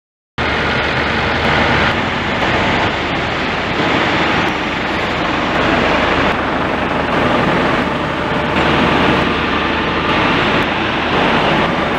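Loud, steady machinery noise of a drilling rig's shaker tank area, cutting in abruptly about half a second in after silence and shifting in tone every couple of seconds.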